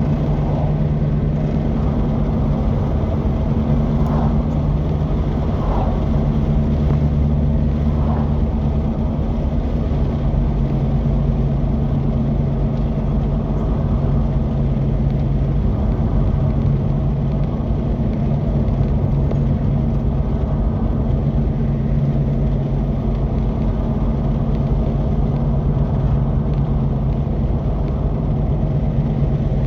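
Polaris Xpedition side-by-side UTV engine running steadily, with a constant low drone that holds an even pitch and level.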